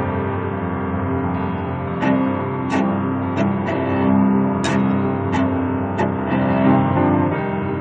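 Cello and piano playing a slow classical passage, sustained low notes with about seven sharp, separate note attacks between two and six seconds in.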